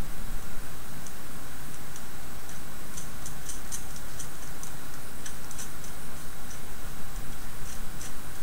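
Faint, irregular little clicks and ticks of small metal screws and nuts being handled and hand-tightened on a robot kit's board, over a steady background hiss and hum.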